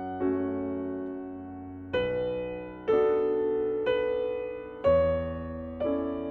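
Slow, gentle piano music: soft chords struck about once a second, each fading before the next.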